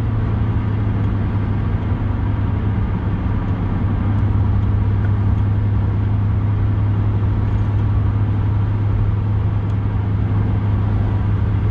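Steady car engine and road noise with a constant low hum, rising slightly a few seconds in.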